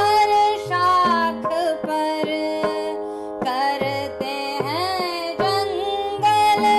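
Background Indian classical music: a melody with gliding notes over a steady drone, with regular hand-drum strokes.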